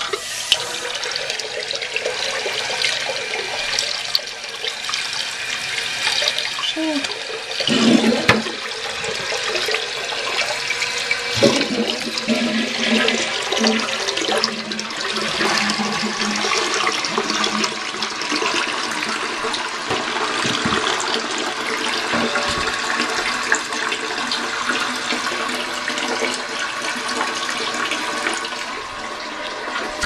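1972 Norris-Thermador toilet flushing: water rushes out of the open tank through the flush valve into the bowl, which starts suddenly and has a loud gurgle about eight seconds in. A steady rush of running water follows as the early-1980s Fluidmaster 400A fill valve refills the tank.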